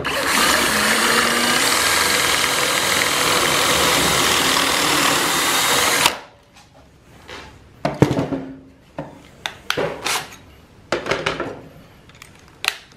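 Power drill spinning a stepped pocket-hole bit through the Kreg Jig R3's guide into a wooden board, running steadily for about six seconds and stopping abruptly. Then come a few scattered knocks and clicks.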